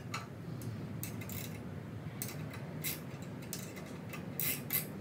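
Light, irregular metallic clicks and clinks as the small metal parts of a bandsaw's upper blade guide assembly are handled and fitted together, a little louder near the end.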